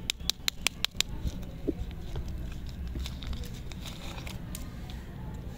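Plastic lollipop wrapper crackling as hands shake it and tear it open. There is a quick run of about seven sharp crackles in the first second, then softer, denser crinkling in the middle, over a low steady rumble.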